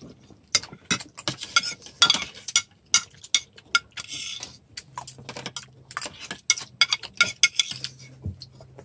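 Metal spoon scraping and clinking against a plate while eating: an irregular run of quick taps and short scrapes, with longer scrapes about two and four seconds in.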